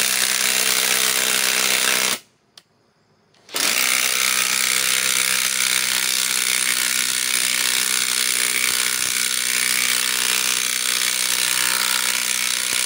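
Ridgid R8721 right-angle cordless impact wrench hammering a 5-inch power lag screw into a log: it runs for about two seconds, stops for about a second, then hammers steadily again for the rest of the time. The lag is going in slowly, the tool struggling to drive it.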